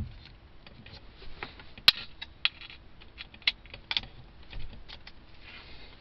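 Irregular small clicks and taps of a screwdriver prying at plastic airbag plug connectors, with one sharp click a little under two seconds in.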